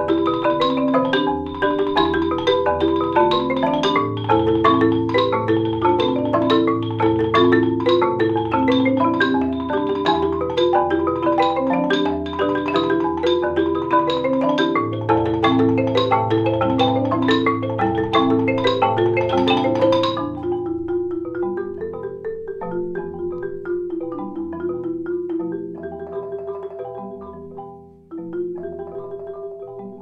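Marimba quartet: four players striking the wooden bars with mallets in fast, dense interlocking patterns over ringing low notes. About twenty seconds in the texture suddenly thins to sparser, softer notes and the music grows quieter.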